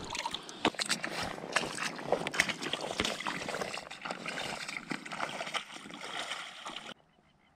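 Someone wading through shallow water in chest waders: an irregular run of splashing, sloshing steps that cuts off suddenly near the end.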